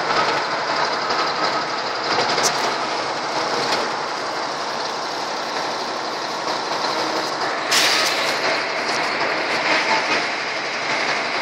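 Steady engine and road noise heard inside the cab of a moving vehicle at highway speed, with a brief rush of louder noise about eight seconds in.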